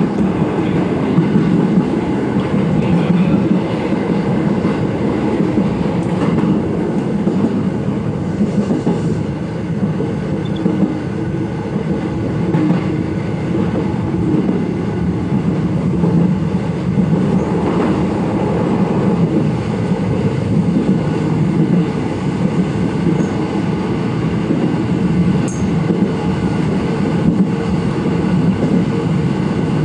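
Electric commuter train running along the line, a steady low rumble of wheels on rails, heard from inside the train.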